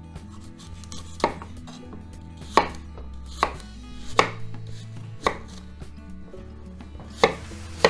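Kitchen knife cutting green apples into wedges: about seven sharp knocks of the blade coming down through the fruit onto the cutting surface, at irregular intervals.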